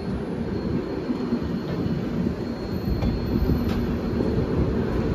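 Steady, dense rumble of train wheels on rails as a passing express train's coaches run close by on the adjacent track, with a few faint clicks.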